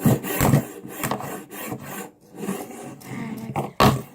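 Fidget spinners being pushed and slid over a wooden table: irregular rasping scrapes and rubs, with a sharp knock near the end.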